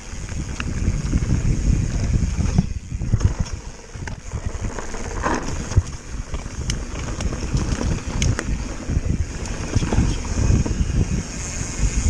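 Wind buffeting the microphone and knobby tyres rumbling over a rough dirt-and-grass trail as a Propain Tyee enduro mountain bike descends at speed, with scattered sharp clicks and rattles from the bike jolting over bumps.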